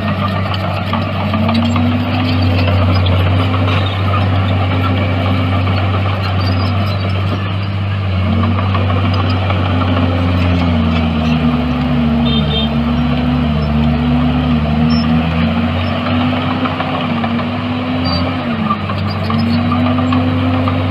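Heavy diesel engine of earthmoving equipment running under working load over a steady low rumble, its engine note sagging and picking up again many times, most often in the middle stretch, as the load comes on and off.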